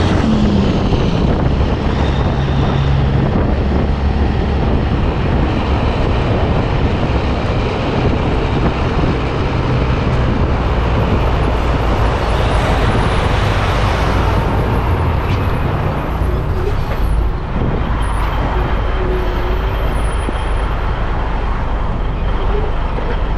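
Diesel engine of a 1984 Peterbilt 362 cabover pulling away under load, revving up at the start, heard from the rear of the double drop trailer it tows. The trailer's rolling rumble and road noise run throughout.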